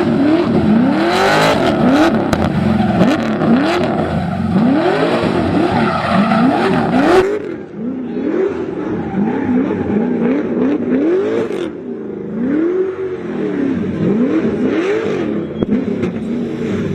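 Cammed, high-compression 7.0-litre LS7 V8 in a Nissan 350Z drift car, revving up and falling back over and over, about one rise and fall a second, through a 3.5-inch single exhaust. About seven seconds in, the sound suddenly turns duller and loses its sharp top.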